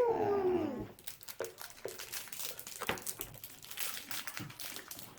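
A brief falling voice-like cry, then a candy wrapper crinkling and crackling in scattered small clicks as it is handled and torn open.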